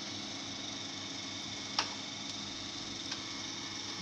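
Desktop PC running with its fans spinning, a steady hum, with a single sharp click a little under two seconds in.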